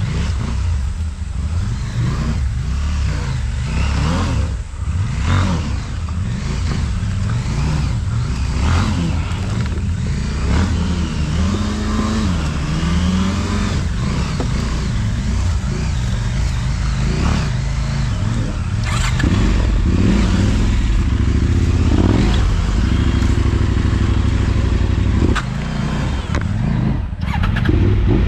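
Motorcycle engine running while riding, its pitch rising and falling briefly about twelve seconds in, with wind buffeting the microphone.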